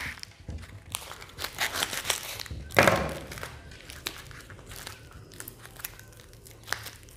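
Plastic wrapping being crinkled and peeled off a tin of airgun pellets: irregular crackles and rustles, with a louder crinkle about three seconds in.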